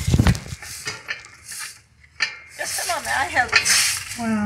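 Knocks and rattles from a metal mesh utility trailer as a raised garden bed is shifted on it, followed by repeated scraping strokes of a broom sweeping pavement.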